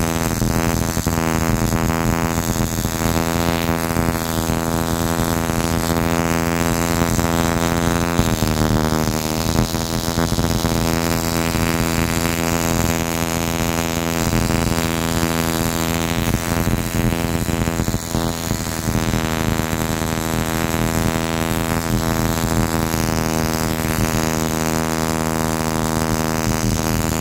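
Distributor tester running the rebuilt Toyota 2E distributor and firing its ignition: a loud, steady buzzing hum with a fine rapid crackle over it, dipping slightly in pitch about eight and again about eighteen seconds in. It starts and stops abruptly, and the distributor is working again after the wiring and condenser repair.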